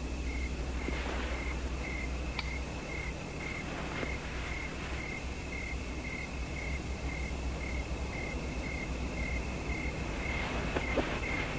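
Crickets chirping in an even rhythm, about two chirps a second, over a steady low rumble, with a couple of faint clicks.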